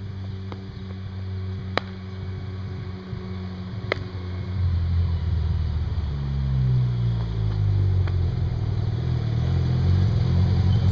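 1987 Mazda RX-7 turbo's rotary engine running as the car drives up, growing steadily louder as it approaches. Its note drops about six seconds in as the car slows.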